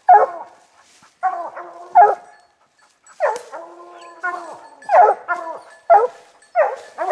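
A pack of bear-hunting hounds bawling treed, the bay that tells the hunters their quarry is held up a tree. About nine loud calls come in a ragged string, mostly short barks, with one longer, drawn-out bawl a little after three seconds in.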